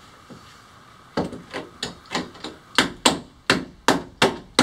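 A hand tool knocking repeatedly at a cracked stainless-steel bearing-holder strap to work it loose. About ten sharp knocks start a second in and come a third of a second or so apart, louder toward the end.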